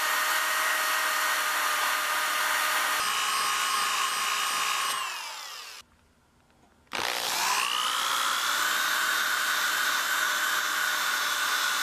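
DeWalt random orbital sander running on the steel head of a hatchet with coarse, about 100-grit paper, a steady whine. About halfway it winds down to a stop, there is about a second of near quiet, and then it is switched back on and spins up to speed again.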